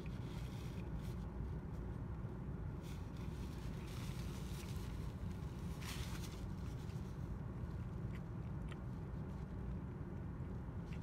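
Steady low rumble inside a car, with faint chewing and mouth sounds over it and a brief rustle about six seconds in.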